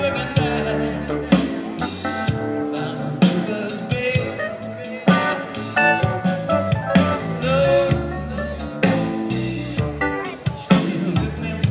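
Live band playing a song on drum kit, electric guitars and keyboard.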